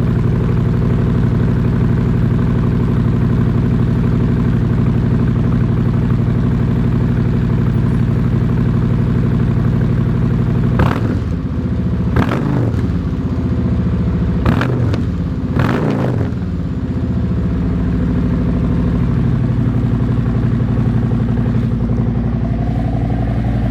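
2019 Harley-Davidson Street Glide Special's Milwaukee-Eight V-twin running through new Shark Road slip-on mufflers, idling steadily, with about four quick throttle blips in the middle.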